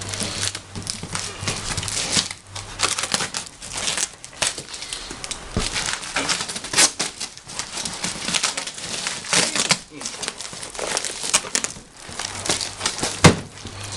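Plastic packaging being handled and crinkled in uneven spurts, with a sharp knock about a second before the end.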